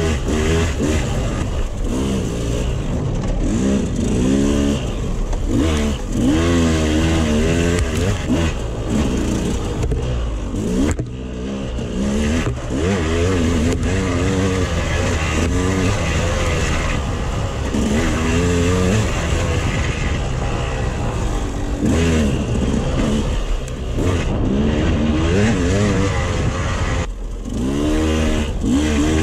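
KTM 200 XC-W two-stroke dirt bike engine revving up and down over and over as the throttle is worked along a tight, twisting trail, each rise in pitch lasting a second or two.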